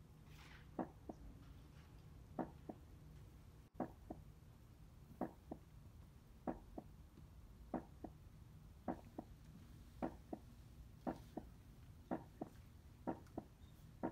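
Soft paired thuds, each a stronger knock followed by a weaker one, repeating slowly and gradually quickening from about every one and a half seconds to about once a second, over a low steady hum.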